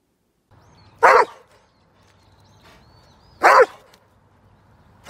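Doberman barking: two loud single barks about two and a half seconds apart, with a third starting at the very end.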